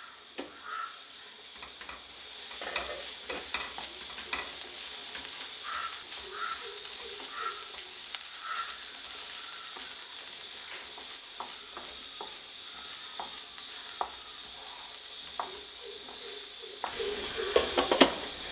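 Grated beetroot, onion and coconut frying gently in oil in a nonstick kadai on low flame, with a soft steady sizzle and the scattered ticks and scrapes of a wooden spatula stirring it. The sizzle grows louder near the end.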